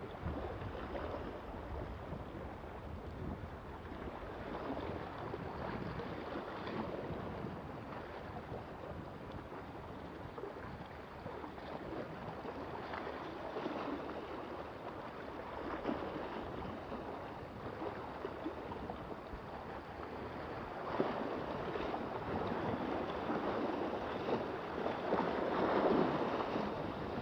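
Small waves lapping and splashing against granite jetty rocks, swelling louder every few seconds, with wind rumbling on the microphone.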